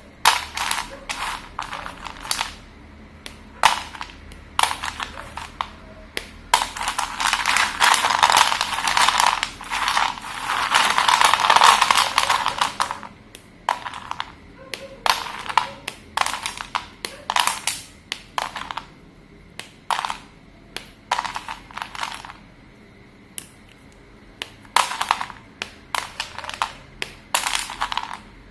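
Slate pencils being crunched and crumbled: a run of sharp snaps and crunches, thickening into a dense stretch of crunching from about seven to thirteen seconds in, then sparser snaps.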